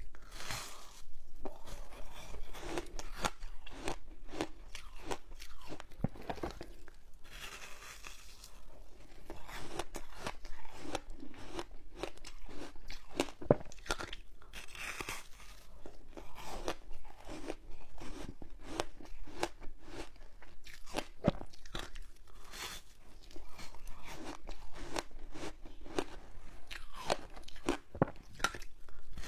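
Frozen passion fruit foam ice being bitten and chewed close to the microphone: a dense, continuous stream of brittle crunches and cracks, with a few louder snaps.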